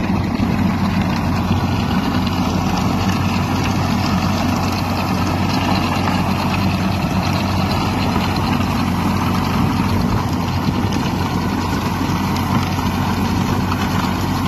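Farm tractor's engine running steadily under load, driving a rotary ditching disc that cuts a ditch through dry field soil.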